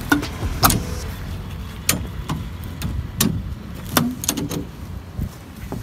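Sharp clacks and knocks from a vintage car's folding soft-top frame as its hinged steel bars are worked and folded down, about eight irregularly spaced knocks.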